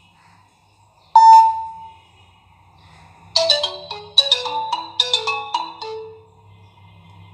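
New Nokia 3310 ringtone playing. A single loud ringing note sounds about a second in and dies away within a second. A quick tune of about a dozen short notes follows and ends about six seconds in.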